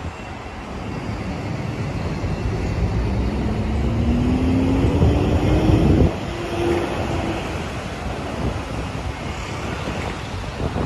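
Street traffic with a vehicle accelerating, its engine note rising and the noise building for a few seconds before dropping off sharply about six seconds in; steady traffic rumble continues after.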